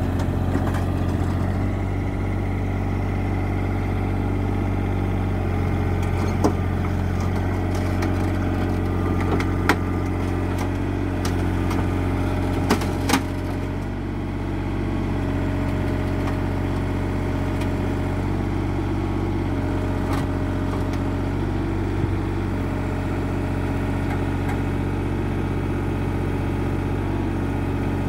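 Hyundai R35Z-7A mini excavator's diesel engine running steadily while the machine drives down off a truck, with a few sharp metal clanks, two close together about halfway through, as the steel tracks shift onto the steel loading ramps.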